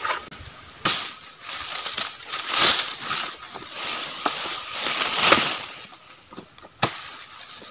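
Dry oil palm fronds rustling and scraping as they are dragged and stacked through leaf litter, with several loud swishes and a sharp crack near the end. A steady high insect drone runs underneath.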